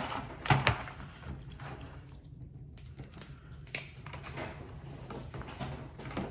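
A few short knocks and soft rustles from objects being handled on a tabletop, over a low steady hum.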